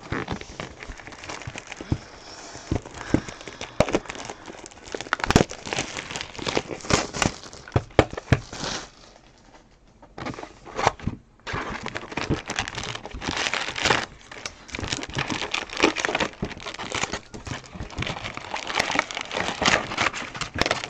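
Foil-wrapped trading card packs crinkling and rustling as they are handled and pulled from a cardboard hobby box, with sharp taps and scrapes of cardboard. It goes quieter for a moment about ten seconds in.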